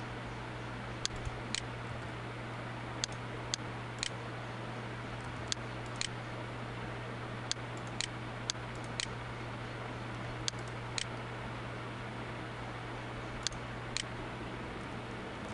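A steady low electrical hum and hiss, with sharp single clicks now and then, often in pairs half a second apart.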